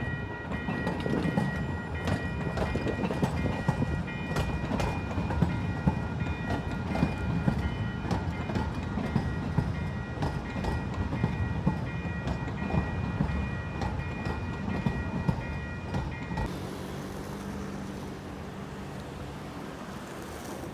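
A vehicle running, with a steady rumble and frequent clattering clicks, and a steady high whine over it that cuts off suddenly about sixteen seconds in, leaving a quieter rumble.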